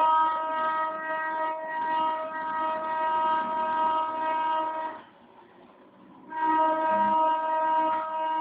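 CNC foam-cutting pantograph running as it cuts EPS foam tiles, giving a steady mechanical whine. The whine stops about five seconds in and resumes a little over a second later.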